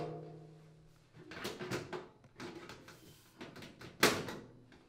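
Steel rear access panel of a front-load washer being fitted onto the cabinet: a ringing tone fades over the first second, then sheet metal scrapes and rattles as it slides into place, and a sharp knock about four seconds in as it is pressed flat.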